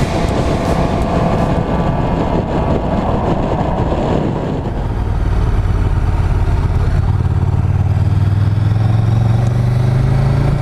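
Motorcycle riding sound from the bike's own camera: a dense rush of wind and engine noise, then from about halfway a steady low engine note that climbs gradually in pitch as the bike accelerates. The bike is a KTM 1290 Super Duke GT with its large V-twin engine.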